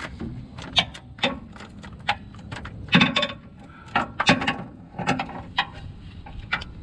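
Hand tools clicking and clanking against metal parts under a car in irregular bursts while the old power-steering rack and pinion is unbolted, with louder clanks about three and four seconds in.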